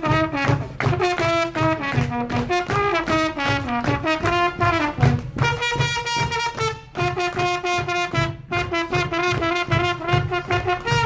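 Trumpet playing a melody of held and moving notes over a backing track with a steady beat.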